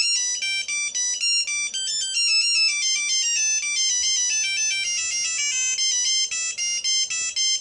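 Samsung SCH-3500 cell phone playing one of its built-in ringtones through its small speaker: a long, busy melody of high-pitched electronic beeping notes changing pitch in quick succession.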